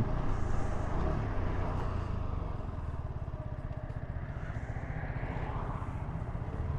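Yamaha YZF-R125's single-cylinder four-stroke engine on its stock exhaust, running steadily with an even pulse.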